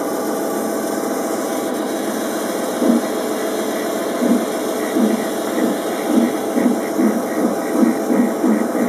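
Computer-simulated steam locomotive sound played through stereo speakers: a steady hum, then from about three seconds in a chuffing that quickens as the model steam locomotive is driven off.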